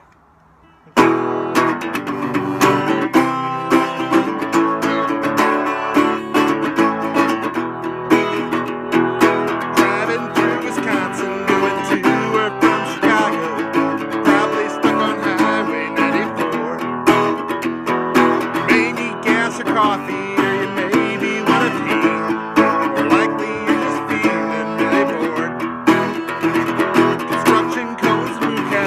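Acoustic guitar playing a song's instrumental introduction, strummed and plucked in a steady rhythm, starting abruptly about a second in.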